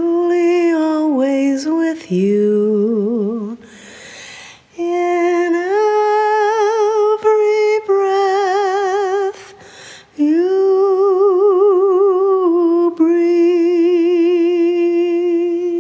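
A woman singing a slow wordless melody unaccompanied, in four phrases of held notes with vibrato; the last note is held for several seconds. In the second phrase a lower second voice sings in harmony.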